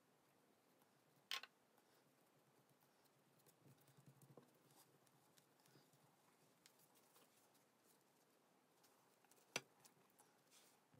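Near silence, with faint rustling of hands rolling a spring-roll pastry sheet on a stone counter and two sharp taps, one about a second in and one near the end.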